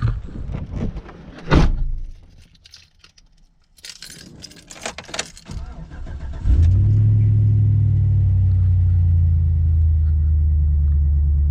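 A thump and the jingle of keys, then a vehicle's engine starts about six and a half seconds in and settles into a steady, even idle.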